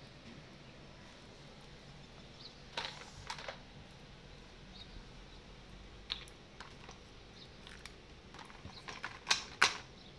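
Irregular clicks and knocks as a cocker spaniel noses and mouths a hard plastic toy on a tile floor. There are a few scattered taps, and the loudest pair of clacks comes near the end.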